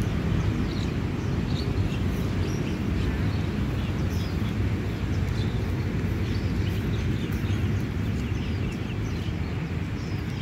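Outdoor park ambience: a steady low rumble with many short bird chirps scattered over it.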